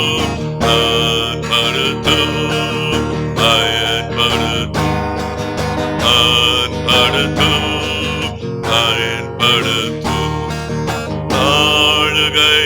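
Worship music with guitar playing, continuing between sung lines of a Tamil praise song.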